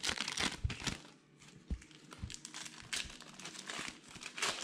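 Foil wrappers of baseball card packs crinkling and tearing as they are ripped open, dense at first, then scattered crinkles with a few soft thumps, picking up again near the end.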